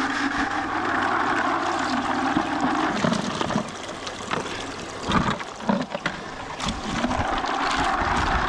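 Shallow creek water rushing and splashing as clams are rinsed in a plastic bucket held in the stream. Partway through, the water eases and the shells clatter and knock against each other and the bucket several times.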